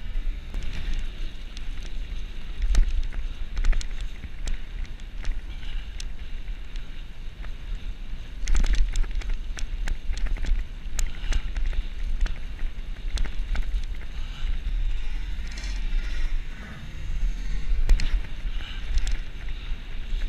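Bicycle ridden fast on a dirt forest track, heard through a handlebar- or helmet-mounted action camera: wind buffeting the microphone with a steady rumble, tyre noise, and sharp rattles and clicks of the bike over bumps now and then.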